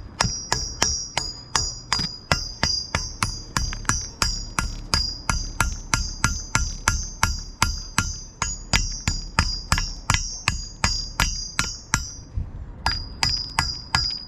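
Claw hammer striking an old metal vent pipe over and over, about three blows a second, each with a high metallic ring, to knock the pipe stub off so new flashing can go over it. The blows stop briefly near the end, then start again.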